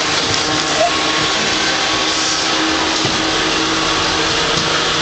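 Vacuum cleaner running steadily: an even, loud rush of air over a constant motor hum.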